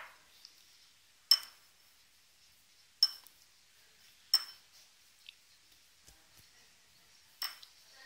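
Drinking glass clinking as pieces of strawberry and kiwi are dropped into it and the glass is handled: about five sharp, brief clinks with a short ring, a second or more apart, the loudest three in the first half.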